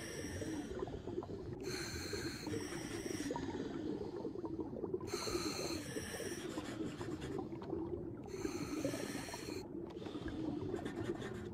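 Cartoon scuba breathing through a diving regulator: four hissing inhales about three seconds apart, with bubbling in between over a steady low, muffled underwater rumble.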